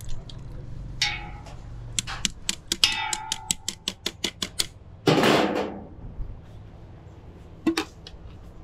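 Kitchen work sounds: a brief clatter, then a quick run of about a dozen sharp clicks, roughly five a second, followed by a short loud hiss about five seconds in that fades away.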